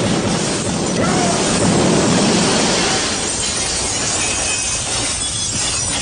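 Loud, dense crashing noise like breaking glass and debris, easing after about three seconds.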